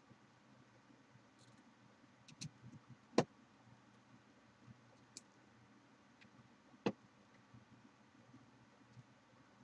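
Scattered clicks and knocks of hard plastic and metal parts being handled while fitting a Kraken G10 bracket, fan and liquid cooler to a graphics card, with two sharper knocks about three and seven seconds in over a faint steady hum.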